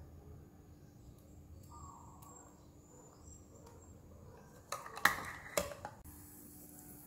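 A brief clatter of kitchenware about five seconds in, a few sharp knocks, over a faint steady background hum.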